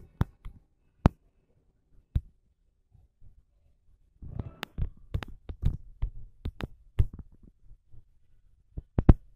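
Irregular sharp taps and low thumps from a handheld phone being carried while walking: handling noise and steps, sparse at first, then a quick flurry in the middle and two more taps near the end.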